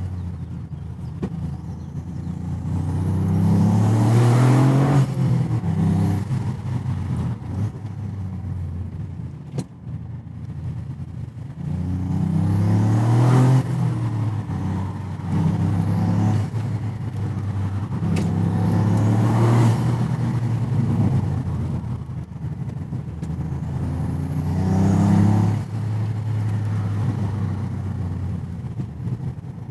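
Toyota GR Yaris's turbocharged three-cylinder engine pulling hard four times, heard through an aftermarket intake airbox and open-flow air filter, its pitch climbing on each pull. Each pull ends in a sharp hissing whoosh from the blow-off valve as the throttle is lifted, with quieter cruising in between.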